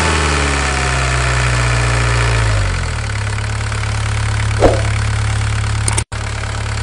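Engine sound effect laid over toy play: an engine slowing, its pitch falling over the first three seconds, then idling steadily. A short knock about halfway through, and a momentary dropout to silence about six seconds in.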